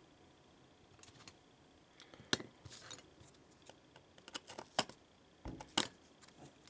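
Irregular sharp metallic clicks and taps, about a dozen, as a small metal hand tool works against the bent aluminium corner of an iPad Air's frame. The loudest come between about two and six seconds in.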